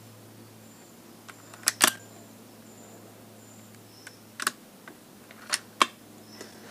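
Several sharp mechanical clicks: a quick pair about two seconds in, a single one near four and a half seconds, and another pair around five and a half seconds, over a faint steady low hum.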